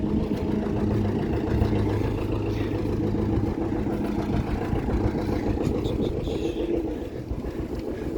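An engine running steadily at a low, even speed, with a low rumble and a steady hum.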